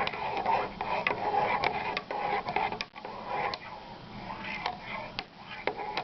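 A spoon stirring Ovaltine powder into hot milk in a mug, scraping round and clinking irregularly against the sides; the clinks are quieter in the second half.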